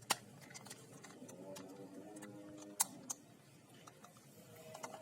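A quiet stretch with three light, sharp clicks: one at the start and two close together about three seconds in. A faint hum runs underneath in the middle.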